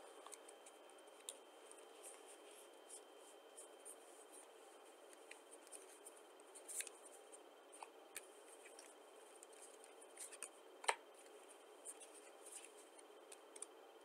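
Playing cards being handled and laid down on carpet: faint scattered clicks and snaps of the cards, with one louder snap late on, over quiet room hiss.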